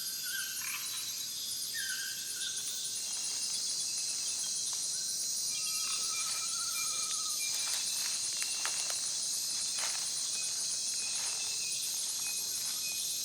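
Amazon rainforest insects at night in a dense, steady, high-pitched chorus of overlapping trills, with a few short lower calls and a brief trill near the middle standing out from it.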